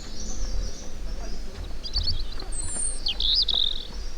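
Small songbirds chirping, with a short burst of chirps about halfway through and a quick warbling trill near the end, over a steady low rumble.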